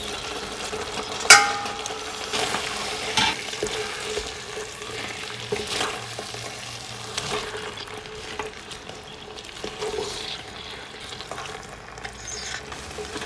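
Vegetables and fusilli pasta sizzling in a hot non-stick pan while being turned with a wooden spatula, with scattered knocks and scrapes of the spatula against the pan, the sharpest about a second in.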